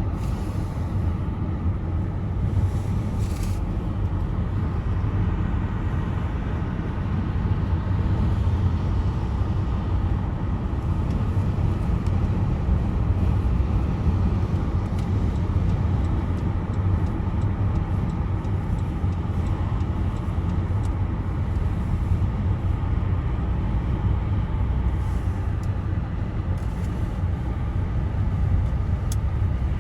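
Car driving on a highway: a steady low rumble of engine and road noise with a hiss of tyres, and a few faint clicks.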